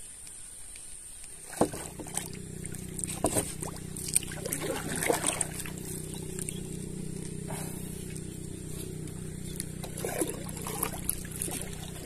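A small boat engine starts about one and a half seconds in with a sharp knock and then runs at a steady speed, with scattered knocks and clatters of gear on the wooden canoe's hull.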